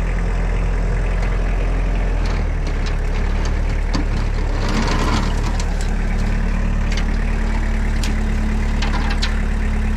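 Engine running steadily under load, with scattered light metallic clinks and rattles; a second steady hum joins about six seconds in.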